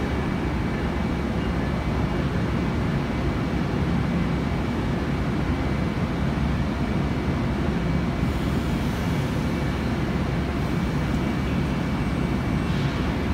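Long Island Rail Road electric multiple-unit train standing at the platform, its onboard equipment giving a steady low hum with faint high tones. A brief hiss comes near the end.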